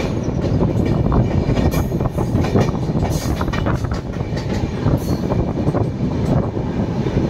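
Train running at speed, heard from on board with the camera at an open window: a steady rumble of wheels on the track with scattered clicks.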